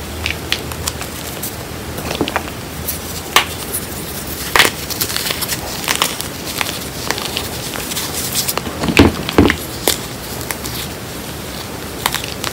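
Hands crumbling and squeezing soft chunks of reformed gym chalk and cornstarch: irregular crunching and crackling, with two louder crunches about nine seconds in.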